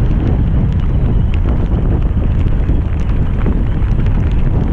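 Strong wind buffeting the microphone: a steady, heavy rumbling rush with scattered faint ticks.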